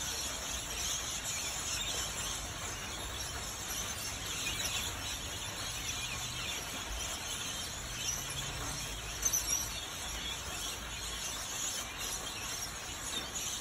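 A flock of rainbow lorikeets keeps up a steady shrill chatter of screeches, with a few louder shrieks about nine seconds in.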